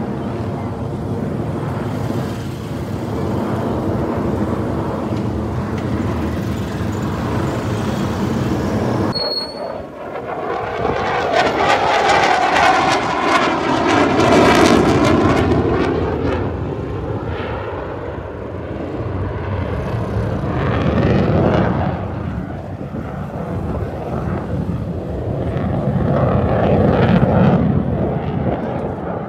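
Military jet aircraft flying over, a steady jet roar. After a sudden cut about nine seconds in, a louder pass swells and fades with a sweeping whoosh, followed by two more swells of jet noise.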